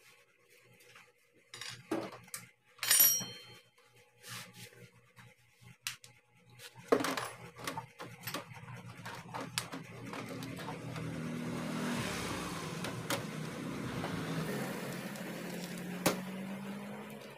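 Metal clinks and knocks of bolts and a hand tool being handled on a motorcycle engine's water pump cover, the loudest a ringing clink about three seconds in. From about ten seconds in a steady low drone joins, its pitch rising near the end.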